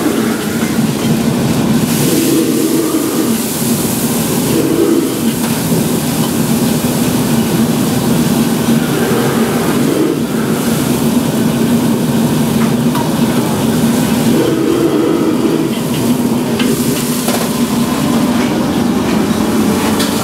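Steady loud roar from the gas burner of a commercial wok range, with food sizzling and frying in the wok as it is stir-fried, and a few faint clicks.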